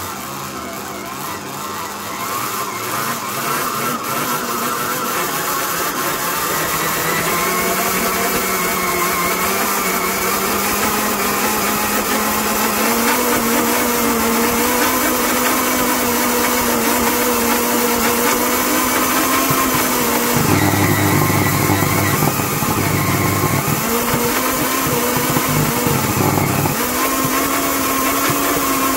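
Belt-driven stand mixer motor running with the beater in dough, overvolted: its whine climbs steadily in pitch and grows louder as the supply is turned up from about 100 V to over 360 V. About two-thirds of the way in, a heavier, rougher rumble breaks in for a few seconds, and again briefly a little later.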